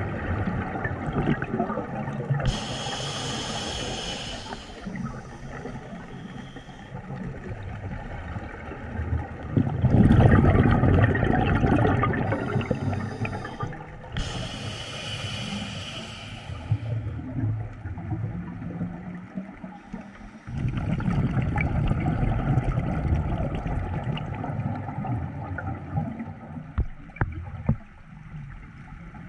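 Scuba diver breathing underwater through a regulator: a few hissing inhalations and longer rumbling, gurgling spells of exhaled bubbles.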